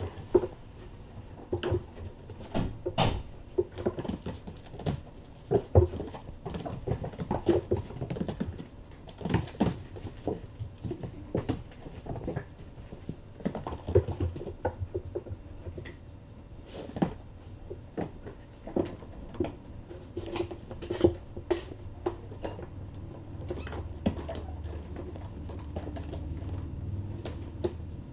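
Kittens playing: irregular thumps, knocks and scuffs of paws and small bodies landing, scrambling and wrestling, with a low hum coming in near the end.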